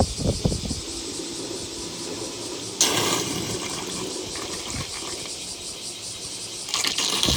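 Pooled rainwater from a flooded roof balcony flowing down into the drain outlet, a steady watery noise with a sudden louder surge about three seconds in and another near the end.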